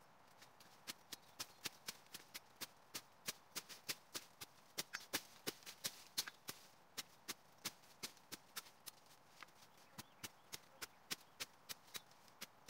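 A long machete chopping through weed stalks in quick, irregular sharp strokes, about three a second, starting about a second in.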